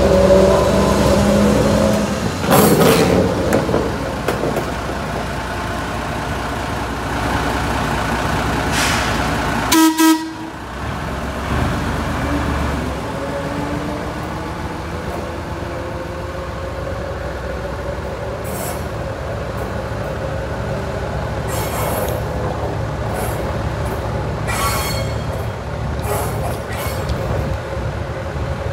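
Train running on the tracks: a steady mechanical rumble of engines and rolling wheels, with a brief pitched tone and an abrupt change in the sound about ten seconds in.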